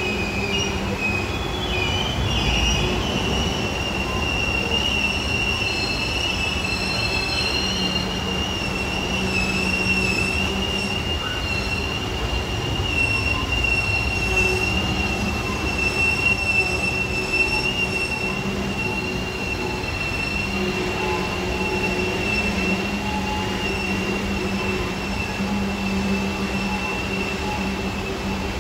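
Coal train cars rolling past on the rails, their wheels squealing in one steady high screech over a continuous low rumble.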